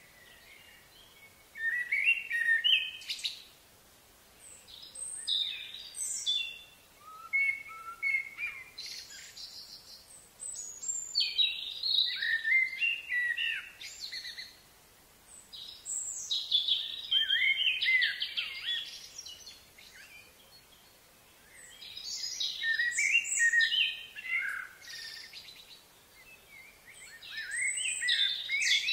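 A songbird singing: warbling phrases of quick, varied notes, each lasting two to three seconds, repeated six times a few seconds apart over faint background hiss.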